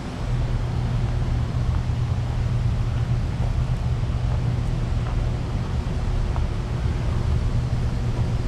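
A steady low hum over a broad rushing noise, getting louder just after the start and then holding even.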